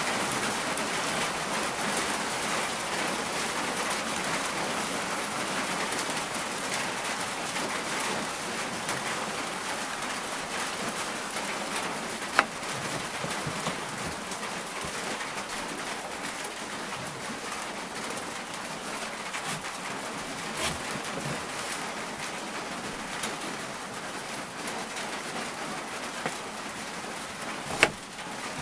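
Steady rain falling during a night thunderstorm, easing slightly, with a few sharp taps of drops, the clearest about twelve seconds in and just before the end.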